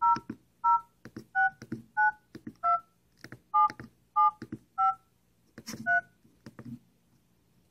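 A cell phone's keypad sounding touch-tone beeps as a phone number is dialed: about nine short two-note beeps at uneven spacing, each with a click from the key press, stopping about six seconds in.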